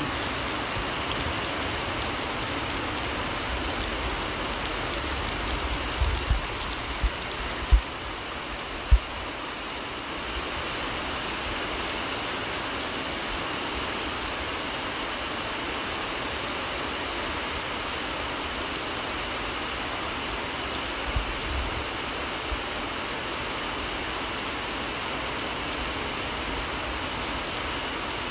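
Heavy rain falling steadily, a constant hiss of downpour. A few short low thumps come between about six and nine seconds in, and again around twenty-one seconds.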